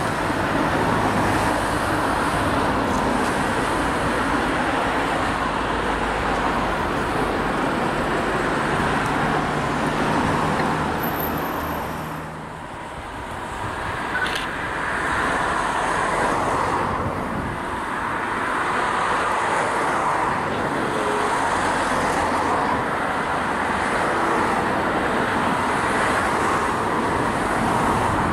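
Steady rumbling vehicle noise, with a low engine drone in the first part. The level eases briefly about twelve seconds in, then returns.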